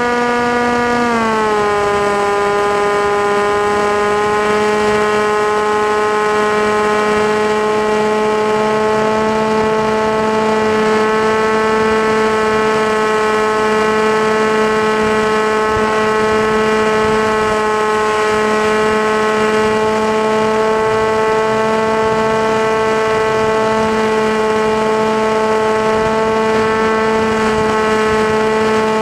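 Electric motor and propeller of an FPV model aircraft in flight, heard through its onboard camera: a steady whine that drops in pitch about a second in, then holds nearly level.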